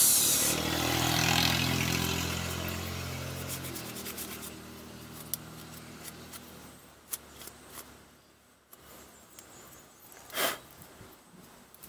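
A motor vehicle's engine hum, strongest in the first few seconds and then fading away, over a cloth rubbing on the brake caliper bracket and clips. A sharp click about ten seconds in.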